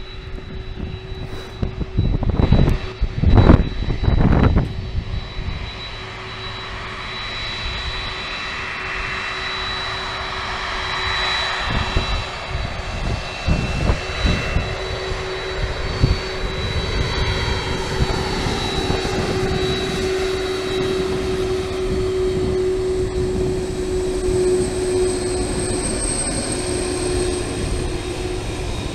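Boeing 747-400ERF freighter's four jet engines running at taxi power as it rolls slowly past: a steady jet roar with a constant high whine. A few loud low buffets come about two to five seconds in, and a higher whine grows stronger near the end as the engines come alongside.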